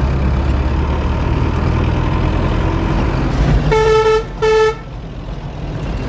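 A heavy vehicle's engine running low and steady, then a vehicle horn gives two short toots, a little under a second apart, about four seconds in.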